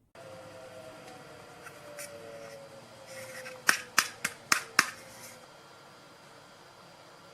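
Five sharp clicks in quick succession, about a quarter of a second apart, over a steady hiss.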